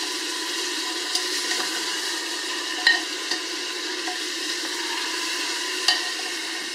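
Pork ribs with onion, carrot and garlic sizzling steadily as they fry in an Afghan kazan while being stirred, the stirring utensil knocking against the pot a few times, sharpest about three and six seconds in.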